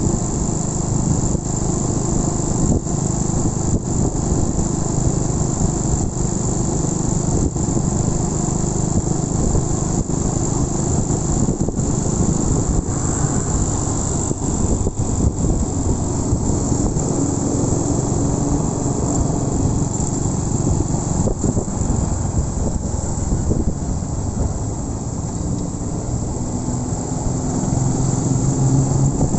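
Honda Win 100 motorcycle running on the move, its engine note under a heavy rumble of wind on the microphone, with a steady high insect chirring over it; the engine rises near the end.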